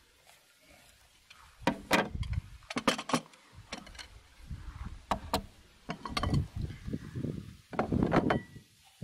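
Ceramic plates being set down one after another on a wooden table: a series of sharp clinks and duller knocks, irregularly spaced.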